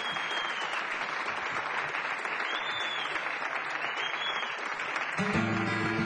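Audience applauding, with a few short whistles rising and falling over the clapping. About five seconds in, an acoustic guitar starts playing.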